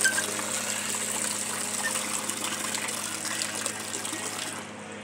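Water gushing from a pipe and splashing into a concrete water trough, an even rushing splash that drops off near the end. A steady low hum runs underneath.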